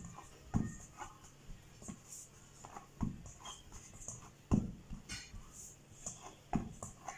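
Hands kneading soft flour dough in a stainless steel bowl: irregular dull thumps every second or two as the dough is pressed down against the bowl's bottom, the strongest about halfway through.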